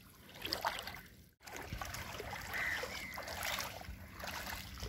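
Shallow lagoon water trickling and sloshing around a small wooden outrigger canoe as the boatman moves in the water beside it, with a brief complete gap about a second and a half in.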